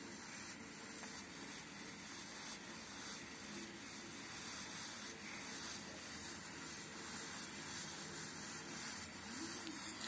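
Faint, steady hiss of water heating on an electric water-heater immersion element, small bubbles forming on the hot element: the start of boiling at the element while ice keeps the rest of the water cold.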